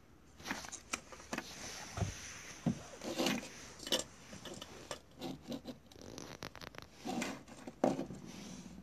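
Hands handling and sliding opened plastic smoke detector housings and circuit boards on a tabletop: irregular clicks, light knocks and scraping, starting about half a second in.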